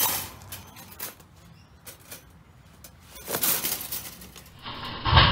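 Wire mesh cage trap rattling and clinking as it is handled, with a sharp metallic clatter at the start and a brief scuffle about three seconds in. A heavy thump comes near the end.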